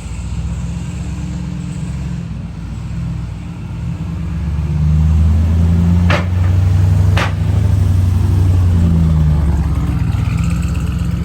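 Ram TRX's supercharged 6.2-litre Hemi V8 running as the truck pulls away, getting louder about five seconds in as it accelerates. Two short sharp knocks come about a second apart midway through.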